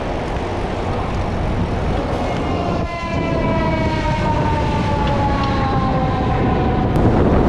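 Wind rushing over an action camera's microphone on a moving bicycle, a loud steady rush. From about three seconds in, a long siren-like tone from traffic runs for about four seconds, slowly falling in pitch.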